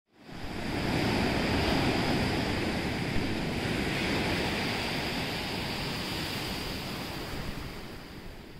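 Ocean surf breaking and washing up a beach: a steady rush of waves that fades in over the first second and fades out near the end.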